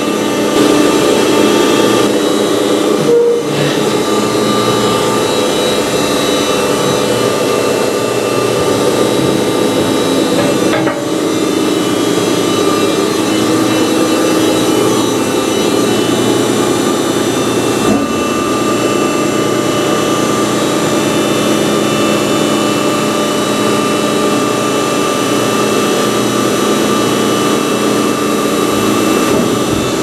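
SELCO HL7 horizontal baler running: its 15 hp three-phase electric motor and hydraulic pump give a steady hum with several steady tones. The hum dips briefly twice, about 3 and 11 seconds in, and there is a light click near 18 seconds.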